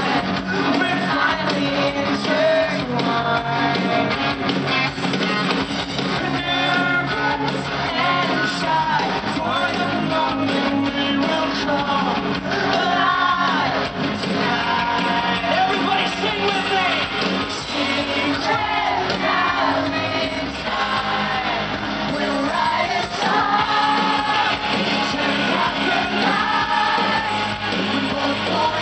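Live pop-rock band playing a song with a male lead singer, amplified through a PA: drums, guitars and bass under a sung melody, with no pauses.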